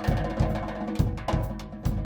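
Drum kit played in a solo: bass drum, snare and cymbals struck in quick, dense patterns, with the drums ringing between hits.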